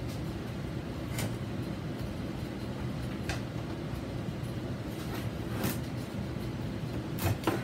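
Metal parts being handled on a workbench, giving a few scattered light clicks and knocks over a steady low background hum.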